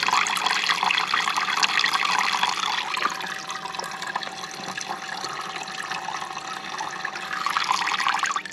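Water running from a camper van's sink tap in a steady stream, splashing into a plastic measuring jug. It is softer from about three seconds in and louder again near the end.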